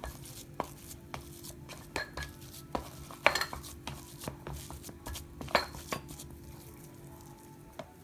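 A utensil clicking and scraping against a bowl while crushed cooked chicken, potato and grated cheese are mixed together, in irregular knocks, the loudest about two, three and five and a half seconds in.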